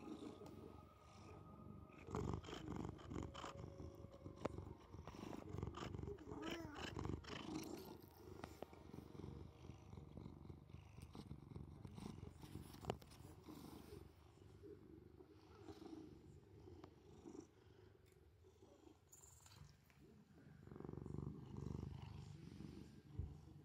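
Domestic cat purring close to the microphone, a steady low rumble that swells louder in the first few seconds and again near the end.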